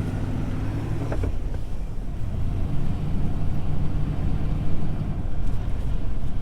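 Engine running steadily under load, its speed dipping about a second in and picking back up a second or so later.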